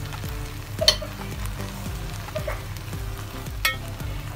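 Steel ladle knocking twice against an aluminium pot as chicken gravy is spooned over rice, over a faint steady sizzle from the pot on the gas flame.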